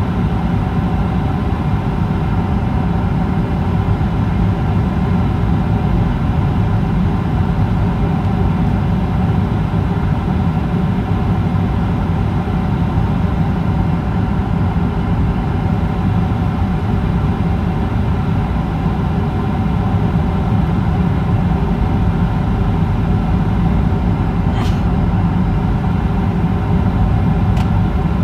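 Steady cabin noise of a jet airliner descending on approach to land: a low, even roar of engines and rushing air, with a faint steady hum above it.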